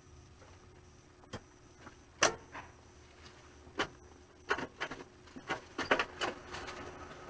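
Irregular sharp taps and clicks on the car's body and glass, heard from inside a car in an automatic car wash tunnel. A few come singly at first, then they bunch together from about four and a half seconds in, and a faint hiss builds near the end.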